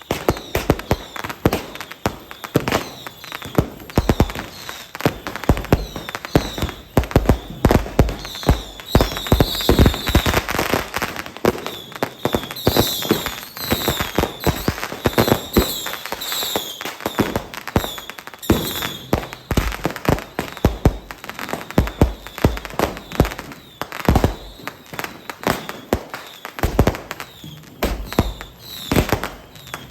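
Fireworks and firecrackers going off in rapid, irregular succession: many sharp bangs and crackles. A denser, louder stretch of crackling comes from about nine to nineteen seconds in.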